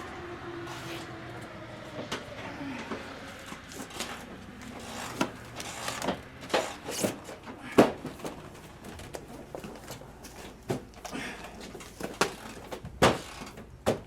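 Irregular clicks and knocks of hand tools and plastic body parts being handled during car bodywork, with a few sharper knocks about eight and thirteen seconds in.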